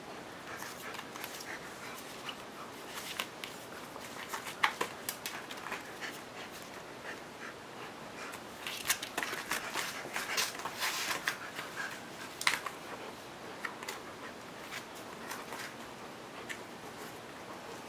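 Large dog sniffing and snuffling at the floor mat, with short scratchy clicks and scrapes from paws and the string toy. The sound comes in bursts, busiest about a third of the way in and again past the middle.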